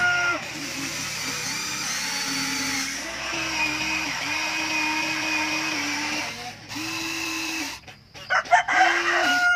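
Electric motors of a Huina remote-control toy excavator whining as the boom, arm and bucket move. The whine holds steady tones for a second or more, shifting pitch each time a different motion starts. Near the end come a few short rattling knocks.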